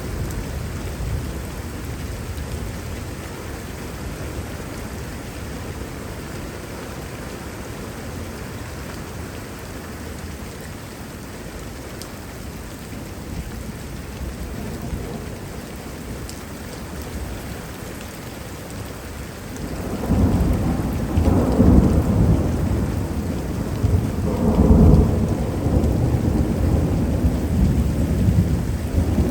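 Heavy rain falling steadily, then a loud thunder rumble breaks in suddenly about two-thirds of the way through, swelling twice and still going at the end.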